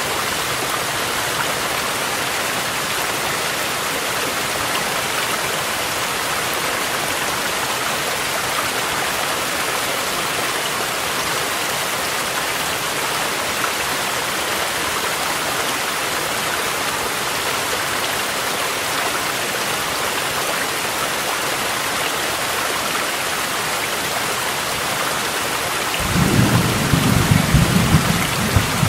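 Steady hiss of rain mixed with a rushing mountain stream. Near the end a low rumble of thunder comes in and rolls on.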